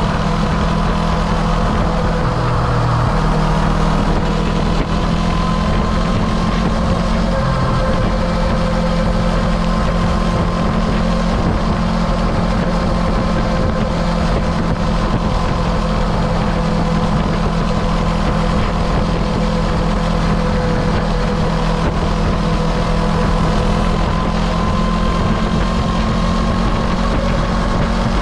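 Motorcycle engine running at a steady highway cruise, with wind and road noise on the onboard microphone. The engine note edges slightly higher over the last several seconds.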